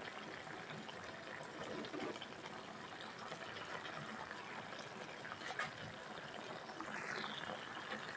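Taro stalks simmering in sauce in a pan, a faint, steady bubbling with a few light clicks.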